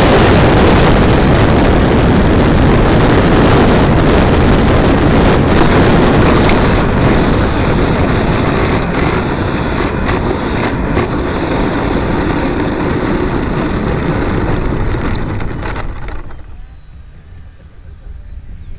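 Air and ducted-fan noise rushing past the onboard camera of a 70mm electric ducted-fan RC F-18 jet in flight, a loud steady rush that drops away sharply about sixteen seconds in.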